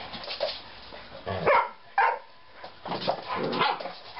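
Eight-week-old flat-coated retriever puppies barking and yipping as they play-fight, with two sharp barks about one and a half and two seconds in and a run of shorter yaps near the end.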